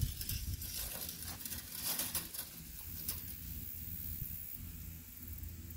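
Galvanized steel wire being fed by hand up a steel T-post through plastic insulators, making faint irregular scraping, rustling and light clicks, with pepper leaves brushing. A low steady hum runs underneath.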